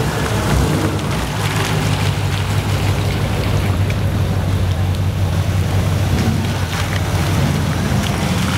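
Classic American pickup trucks' engines rumbling steadily at low speed as they roll in, the rumble growing stronger over the last couple of seconds, with rain falling throughout.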